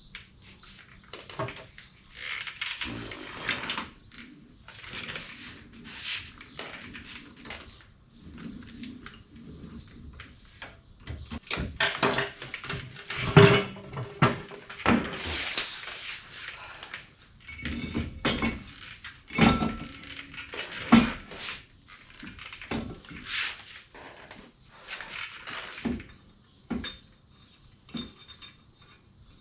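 Metal tools and car parts clinking, knocking and scraping irregularly during hands-on reassembly, with a few short ringing clanks.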